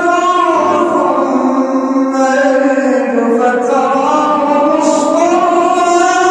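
A man's voice reciting the Quran in a drawn-out, melodic chant: one long line held without a break, its pitch dipping and then rising again.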